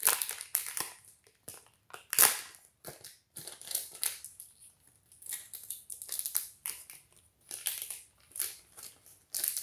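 Foil wrapper of a Pokémon Silver Tempest booster pack crinkling and tearing as it is ripped open and the cards are pulled out, in irregular crackly bursts, the loudest about two seconds in.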